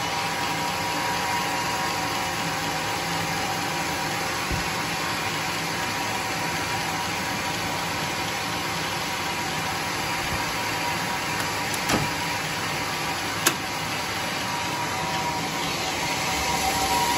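Band sawmill running steadily without cutting: a constant mechanical drone of its motor and free-running blade, with a few faint steady tones. Two sharp knocks sound a little past the middle, about a second and a half apart.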